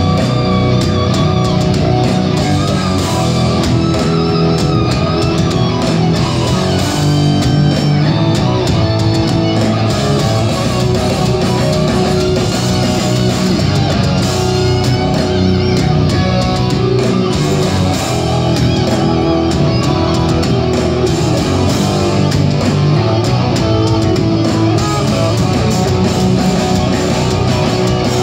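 Live instrumental heavy metal band playing loud: electric guitars carry a melodic lead over bass guitar and a drum kit, heard from within the crowd.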